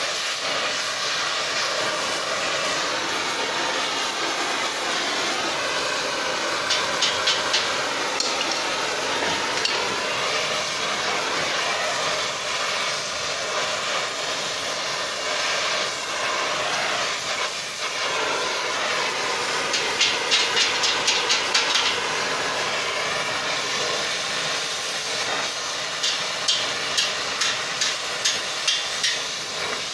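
Oxy-fuel cutting torch flame hissing steadily as it heats a wrapped steel collar of round bar, with runs of hammer taps on the hot steel: a few about a quarter of the way in, a quick flurry past the middle, and a slower steady run of about two blows a second near the end.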